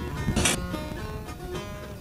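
Background acoustic guitar music, with one short sharp sound about half a second in.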